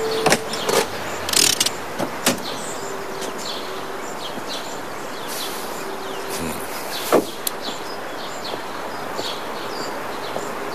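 Small birds chirping outdoors, short high calls repeating throughout, with a few sharp knocks in the first couple of seconds and another about seven seconds in.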